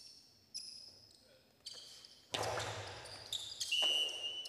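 A jai-alai pelota cracking against the fronton's walls and floor: four sharp, echoing impacts in the first two and a half seconds, the last one loudest. The serve goes over the line for a fault. A steady high tone sounds near the end.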